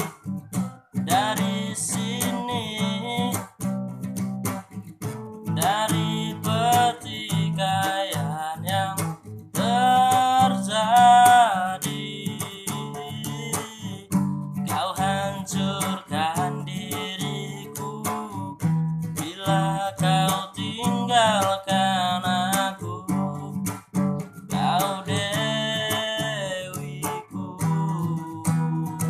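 A voice singing over strummed acoustic guitar, in phrases of a few seconds each.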